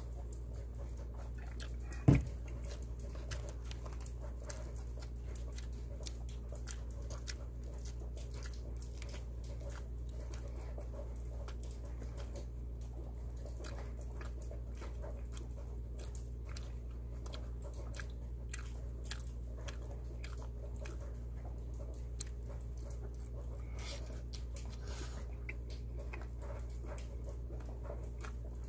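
Close-up mouth sounds of a person chewing and biting into bulgogi pizza, with many small wet clicks and crackles over a steady low hum. A single loud thump comes about two seconds in.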